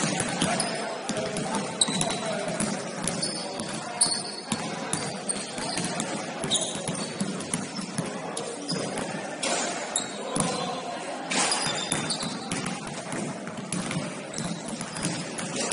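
Gym sounds during a basketball game: the ball bouncing on the court with many sharp knocks, and sneakers squeaking in a few short high squeaks. Indistinct voices sound throughout in the echoing hall.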